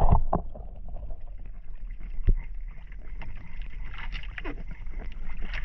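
Wind and water noise around a small outrigger fishing boat at sea, a steady low rumble with scattered faint clicks and one sharp knock about two seconds in.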